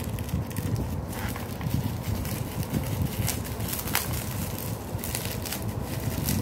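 Steady low rumbling handling noise on the microphone, with scattered crackles and clicks of cellophane shrink wrap being handled and slit with a snap-off utility knife on a cardboard box.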